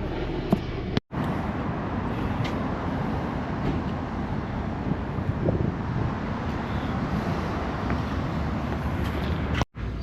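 A car running on the road: a steady, even engine and road noise. It drops out abruptly for a moment twice, about a second in and near the end.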